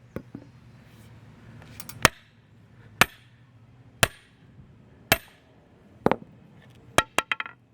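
Five-pound sledgehammer striking a steel duckbill tool driven into a padlock, six sharp metallic blows about once a second, each with a brief ring, then a quick run of lighter clicks near the end. The blows are forcing the lock, which has not yet popped open.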